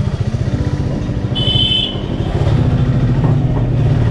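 Motorcycle engine running at low speed, with an even pulsing beat that picks up a little about two and a half seconds in. A short high-pitched beep sounds about one and a half seconds in.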